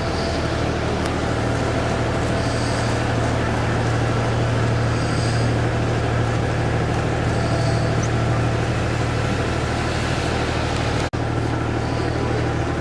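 Canal tour boat's motor running at a steady cruise, a low even drone, with a brief break in the sound about eleven seconds in.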